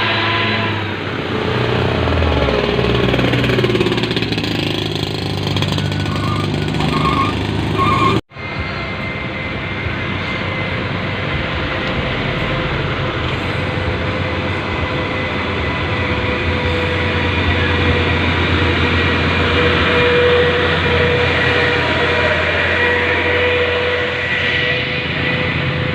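Heavy trucks' diesel engines running loudly, the pitch sweeping in the first few seconds. Three short beeps sound just before an abrupt cut about a third of the way in, after which the engine noise runs on steadily.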